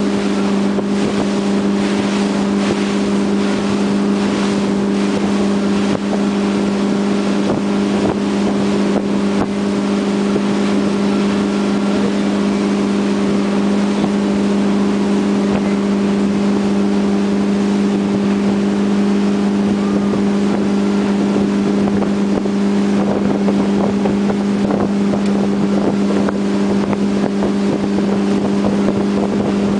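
Tow boat's engine running steadily at cruising speed, a constant drone that holds one pitch throughout, over the rush of water and wake.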